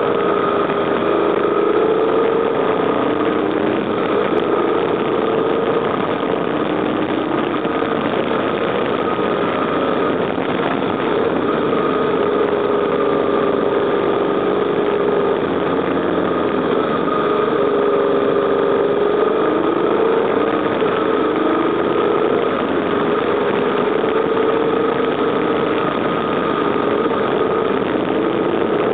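BMW R1200GS Adventure's boxer twin engine running under way, heard from the bike itself. Its pitch rises and falls gently as the throttle is worked through the bends, over a steady rush of noise.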